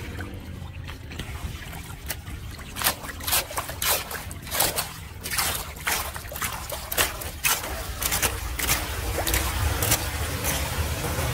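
Muddy floodwater splashing and sloshing as a rake and gloved hand drag leaves and debris off a clogged storm-drain grate. Repeated irregular splashes start about three seconds in, over a steady low rush of water.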